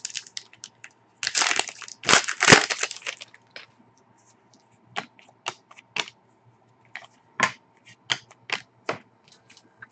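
Foil wrapper of a Panini Contenders hockey card pack torn open and crinkled for about two seconds, followed by a string of short snaps as the cards are thumbed through one at a time.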